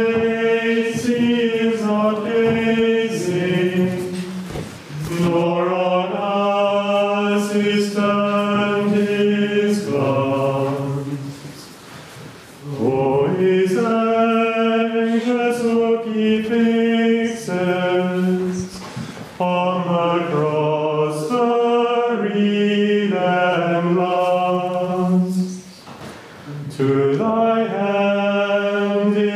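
Men's voices singing liturgical chant in unison, in long held-note phrases of several seconds with short breaks between them.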